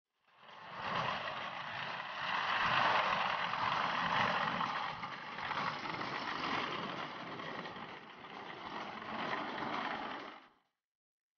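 Tracked all-terrain transporter driving through snow, its engine and tracks running as one steady, noisy sound. The sound fades in just after the start and cuts away about a second before the end.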